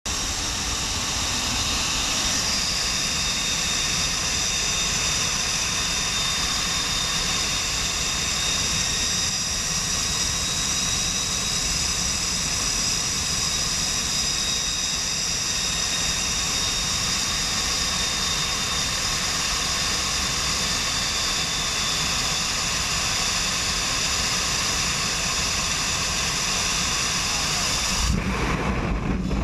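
Steady loud rush of the C-17 Globemaster III's four turbofan jet engines and the airstream past its open paratroop door, with high whining tones over it. Near the end it changes suddenly to heavy, gusting wind buffeting on the helmet microphone as the jumper leaves the aircraft.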